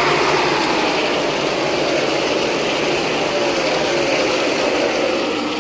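A field of NASCAR Cup stock cars running past the grandstand: a dense, steady din of their V8 engines, with the pitch falling as cars go by about halfway through.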